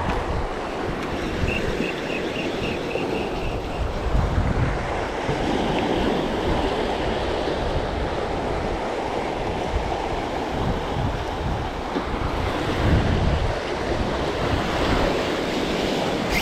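Wind buffeting the microphone over the steady wash of sea waves, with a short run of light ticks early on.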